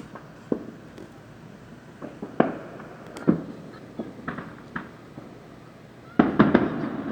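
Fireworks exploding: scattered single bangs about a second apart, then a rapid cluster of louder bangs near the end.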